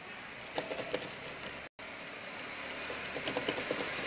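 Steady hum and hiss of a claw-machine arcade, with a few small clicks in two short clusters. The sound drops out completely for a split second about halfway through.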